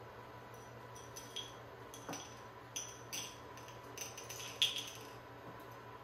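Dry spaghetti strands rattling and clinking against a glass canister as a bundle is drawn out: a scatter of short, sharp clicks, the loudest a little past two-thirds of the way through.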